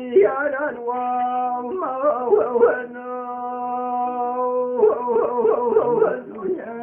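Kurdish hore (hora) singing: a solo voice holds long, steady notes and breaks them with quick, wavering vocal ornaments. The longest held note comes about halfway through.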